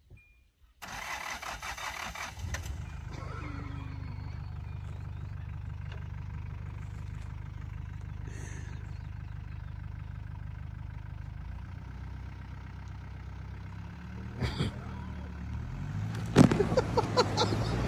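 An engine starting with a short noisy burst, then running steadily with a low hum, its pitch shifting a little near the end.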